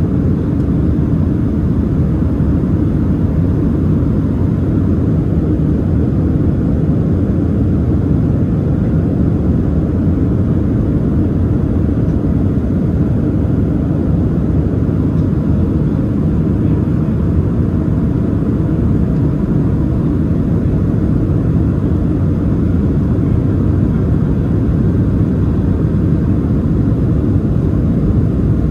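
Steady cabin noise inside a Boeing 737-700 airliner on approach: an even, deep rumble of airflow and its CFM56-7B turbofan engines.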